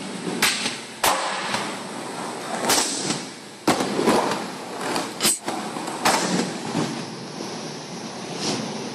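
Skateboard wheels rolling on a smooth skatepark floor, broken by about half a dozen sharp cracks of boards popping and landing, inside a large skatepark hall.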